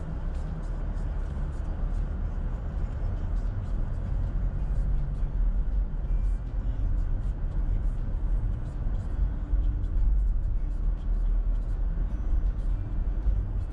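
Car driving on a city street: a steady low rumble of engine and tyre noise that grows somewhat louder over the first few seconds.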